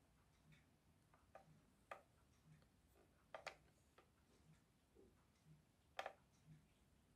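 Near silence: faint, evenly spaced ticks about once a second, with a few light clicks and knocks from the plastic toy tractor being handled, the loudest about six seconds in.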